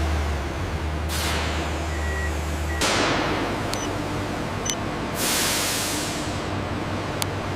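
Steady low machine hum with three sudden bursts of hissing air, each fading away, about one, three and five seconds in, and a few sharp clicks.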